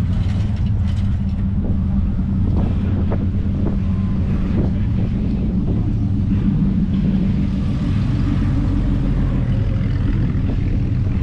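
An engine idling steadily, a constant low hum, with wind buffeting the microphone.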